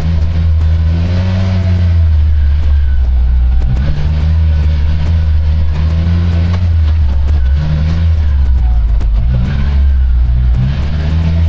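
A motor vehicle running, a heavy steady low rumble with an engine note that rises and falls several times.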